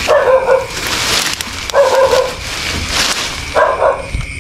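A bullfrog calling close by: a short, nasal, barking call of about half a second, repeated three times at an even pace of roughly one every two seconds.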